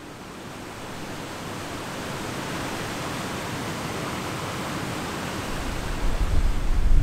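Small mountain waterfall rushing steadily into a pool, fading in over the first couple of seconds. A deep low rumble swells in near the end.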